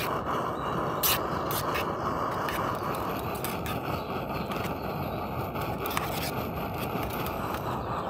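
Optimus 8R petrol stove burning with a steady rushing noise, with a few sharp clicks over it.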